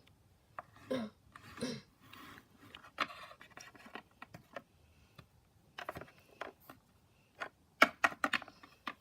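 Small handling noises as hands work sticky homemade glue-and-borax slime: scattered light clicks and scrapes, with a quick run of sharper clicks near the end.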